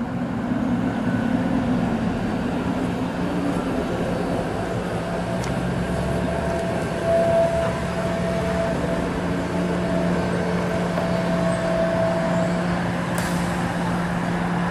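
Street traffic at a streetcar junction, with a steady low hum from vehicles as cars cross the tracks and a streetcar approaches. A faint steady tone runs through the middle, and a short sharp sound comes near the end.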